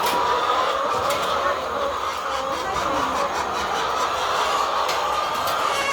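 A flock of laying hens clucking and chattering together steadily, with a few light knocks.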